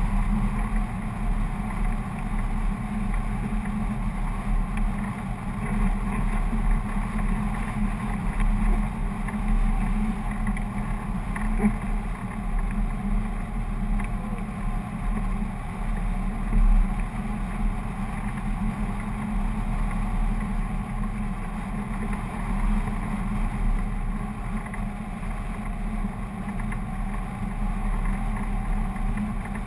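Steady rush and low rumble of air streaming past a camera mounted on a hang glider in flight: wind on the microphone, with one brief louder buffet a little past halfway.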